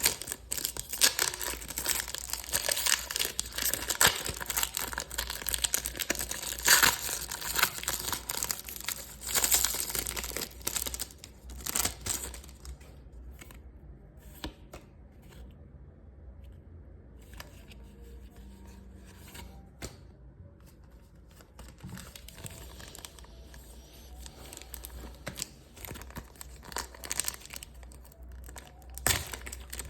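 Plastic and foil Pokémon card packaging being torn open and crinkled: dense, busy rustling for the first dozen seconds, then a quieter stretch of light handling, and the crinkling picks up again near the end.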